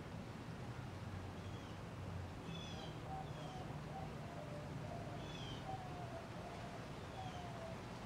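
Hunter Studio Series ceiling fan running with a steady low hum, with faint short high chirps every second or two.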